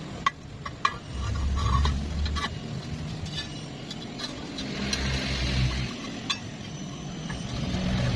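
Stick (arc) welding: a few sharp clicks as the electrode is struck, then the arc crackling and hissing steadily over a low hum.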